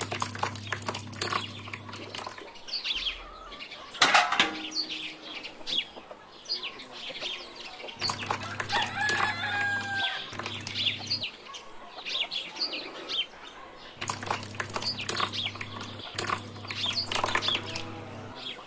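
Chickens clucking and small birds chirping, with a low steady hum that comes and goes.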